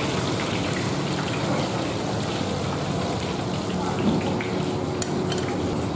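Steady rushing noise of a wok of frothing liquid bubbling hard over a gas burner, with a few light clicks about five seconds in.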